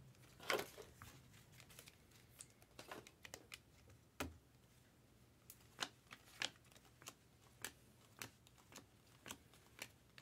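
Faint, sharp clicks and light rustles of stiff Topps Chrome trading cards being handled, flipped and set down one after another, about one or two a second, over a steady low hum.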